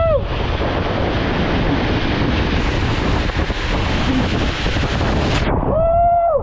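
Water rushing and wind buffeting the microphone during a fast ride down a water slide. A rider shouts "Woo!" right at the start, and another long held whoop sounds near the end.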